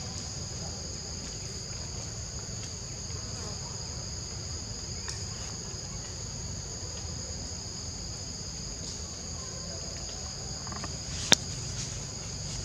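Steady insect chorus: a continuous high buzz on two pitches, over a low steady rumble. One sharp click about eleven seconds in.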